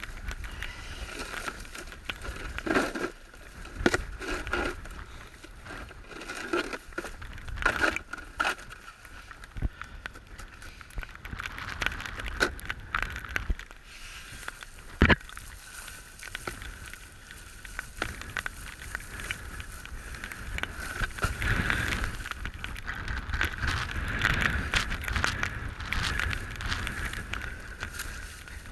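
Goose decoys being handled and gathered: irregular clattering knocks and rustling, with one sharp knock about halfway through. Wind rumbles on the microphone throughout.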